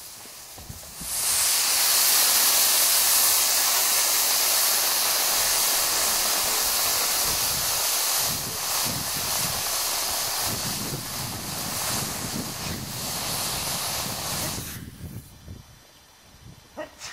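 Homemade potassium-nitrate rocket motor, clamped in a bench vise, static-firing: a loud, steady hiss starts about a second in and holds for some fourteen seconds before cutting off near the end as the propellant burns out.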